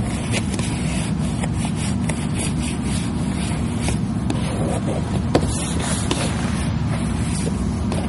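Plastic squeegee and fingers rubbing and scraping over vinyl wrap film as it is smoothed down onto an ATV's plastic fender, in short irregular strokes. A steady low rumble runs underneath.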